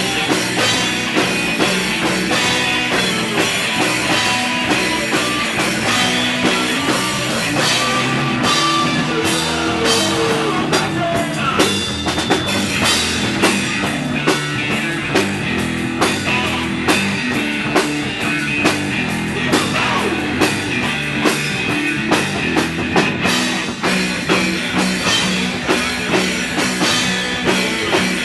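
Live rock band playing an instrumental passage: drum kit and electric guitar, with the drums hitting a steady beat.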